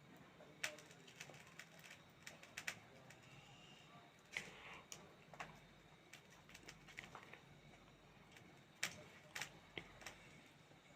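Near silence with faint, scattered light clicks and taps, about a dozen of them at uneven intervals.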